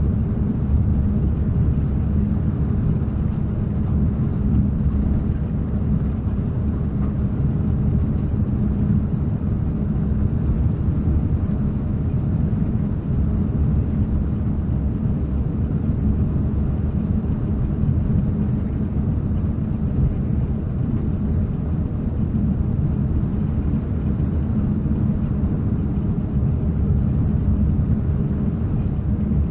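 Truck driving at a steady cruising speed, heard from inside the cab: a constant low engine drone with tyre and road noise.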